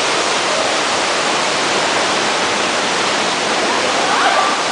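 Waterfall rushing: a steady, loud roar of falling water.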